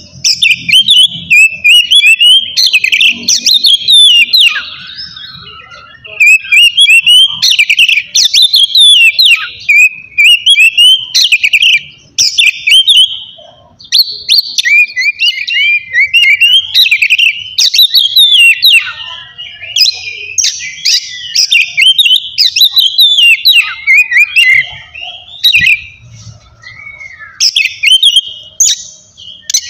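Oriental magpie-robin (kacer) singing loud, fast, varied whistled phrases in bouts of several seconds, broken by short pauses. This is the full 'ngeplong' song, the kind that riles rival magpie-robins into singing.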